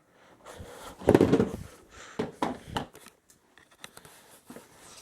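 Hand handling of tools and parts on a table: items being picked up and moved, with a louder rustle and knock about a second in, then a few short clicks and knocks.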